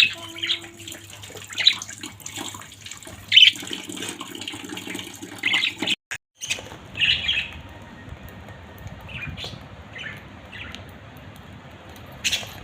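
Budgerigars chirping in short, scattered calls over a steady hiss. The sound drops out briefly about six seconds in and carries on with a different background.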